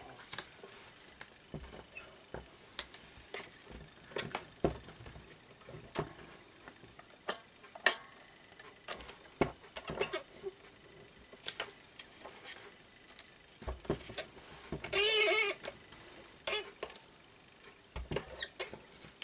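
Crafting handling noise: scattered light taps and clicks as card stock and a small clear plastic container are handled and set down on a wooden desk. About fifteen seconds in comes one short, louder warbling call.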